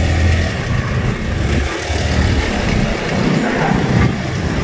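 Street traffic: motor vehicles rumbling past, a low uneven rumble that swells and dips.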